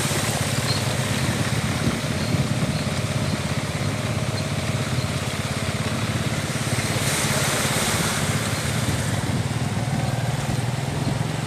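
Motorcycle engine running steadily while the bike rides through shallow floodwater, its tyres washing through the water. About seven seconds in there is a brief louder hiss of spray.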